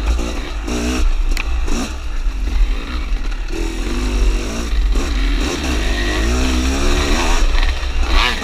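Dirt bike engine being ridden, its pitch rising and falling as the throttle is opened and closed. Under it runs a heavy low rumble of wind buffeting the microphone.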